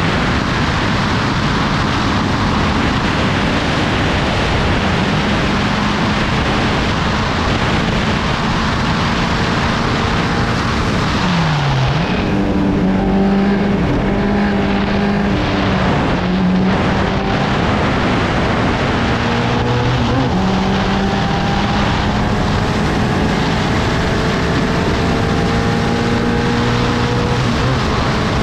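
Open-cockpit Formula 750 race car at racing speed, heard from on board: wind rush and engine running hard. About twelve seconds in the engine note drops sharply, then climbs again in steps through the rest of the lap.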